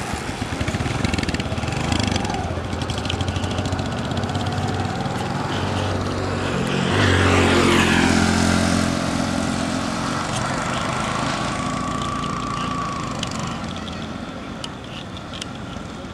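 Motorcycle engine running on the road with traffic noise. It grows to its loudest about seven seconds in, then fades as the bike rides away.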